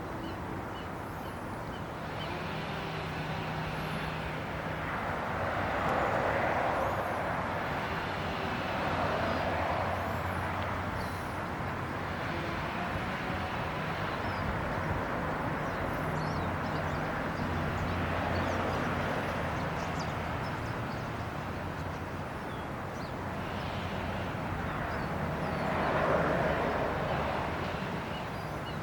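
Steady outdoor background noise of traffic, with vehicles passing in slow swells every several seconds; the loudest pass comes near the end.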